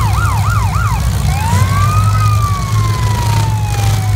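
A siren cycles quickly up and down about five times, then changes to one long wail that rises and slowly falls. Under it runs the loud, steady low rumble of demolition-derby car engines.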